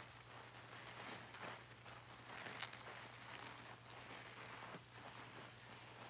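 Mesh bath pouf (loofah) squeezed and kneaded by hand in soapy water: soft, irregular wet squelching of foam and suds, a few squeezes a little louder than the rest. A faint steady hum runs underneath.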